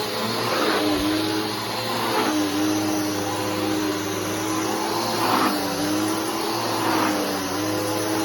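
Bissell Powerforce Helix 3313 upright vacuum cleaner running steadily. Its motor hum dips slightly and a rush of air swells about every second and a half.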